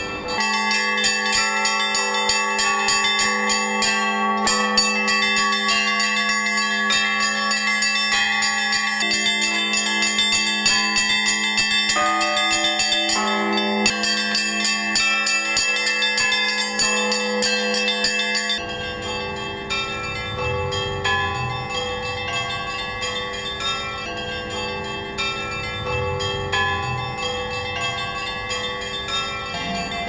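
Russian Orthodox church bells rung by hand from the belfry: many bells of different pitch strike together in a fast, continuous peal over a steady deep bell tone. A foot pedal and chain work one of the clappers. About two-thirds of the way through, the high bells thin out and the ringing gets a little quieter.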